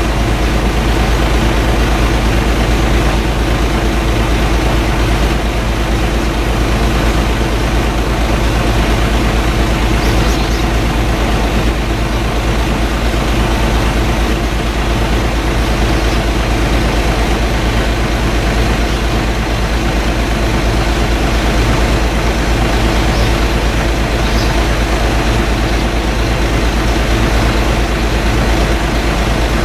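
A steady, loud mechanical drone with a low hum, unchanging throughout.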